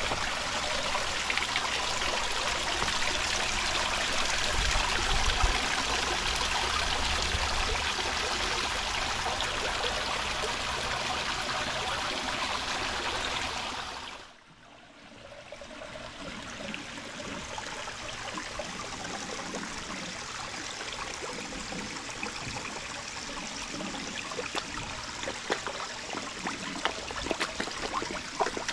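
Water running steadily from a pond outlet and splashing down into the pond. About halfway through it drops suddenly to a quieter, steadier trickle with a few faint ticks.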